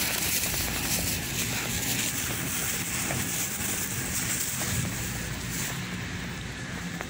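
Steady supermarket background noise: an even hiss over a low hum, with no clear voices or music.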